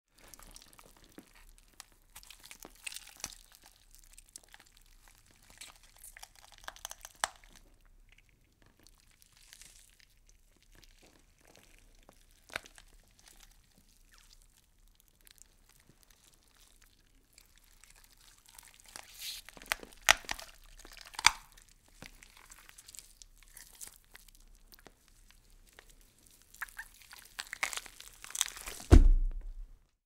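Horror sound effect of wet meat being twisted: scattered crackles and clicks, sparse at first, with louder clusters about two-thirds of the way through. It ends in the loudest burst, closing with a deep low thud shortly before the end.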